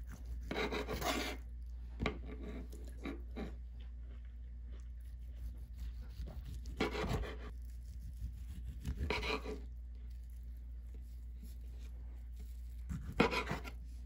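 Serrated bread knife sawing back and forth through tangerine yanggaeng (whole tangerines set in white jelly) on a wooden cutting board. The rasping strokes come in four short spells, with a few light knocks in between.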